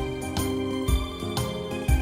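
Background music: a keyboard-led instrumental track with a steady beat.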